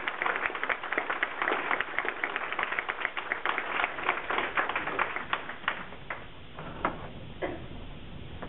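Audience applauding. The clapping is dense at first, then thins to a few scattered claps about six seconds in.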